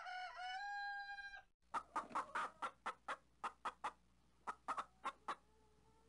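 Rooster imitation on a 1927 country blues record: one long crow that starts with a short rising glide and holds for about a second and a half, then a run of quick, sharp clucks, about five a second, with a short pause near the middle.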